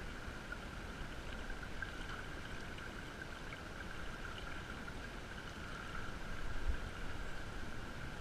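River current running steadily over a shallow bed, with a brief low bump about six and a half seconds in.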